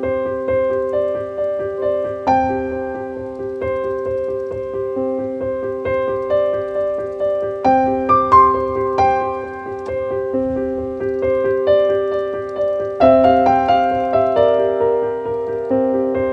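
Background piano music: a slow, gentle melody of struck notes over held chords.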